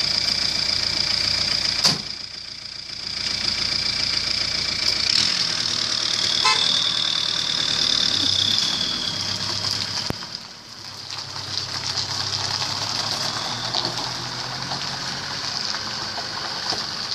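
Light flatbed truck's engine running, with a sharp slam about two seconds in, then the loaded truck pulling away and driving off.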